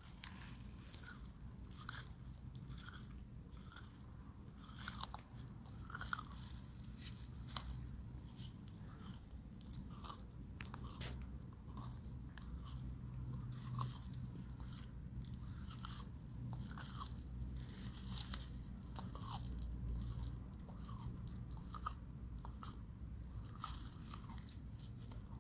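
Leopard tortoise (pardalis babcocki) biting and chewing its food: irregular crunching snaps, several a second at times, over a steady low hum.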